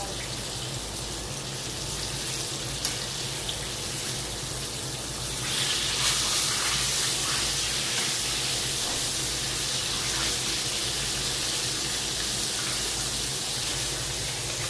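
Flour-coated chicken frying in hot oil: a steady sizzle that grows louder about five and a half seconds in.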